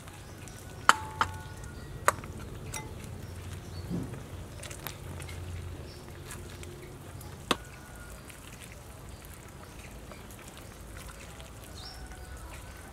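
A metal ladle clinking against a metal soup pot as soup is ladled out into a glass bowl: several sharp knocks with a short metallic ring, most of them in the first three seconds, over a low steady hum.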